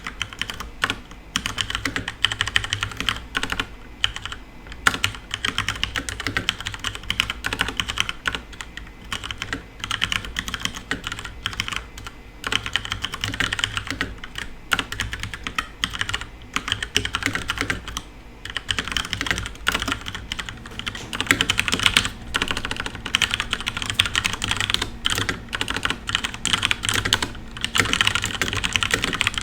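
Continuous fast typing on a FILCO Majestouch Ninja tenkeyless mechanical keyboard with Cherry MX Brown tactile switches: a dense stream of key clacks broken by a few brief pauses, busier and louder in the second half, over a low steady hum.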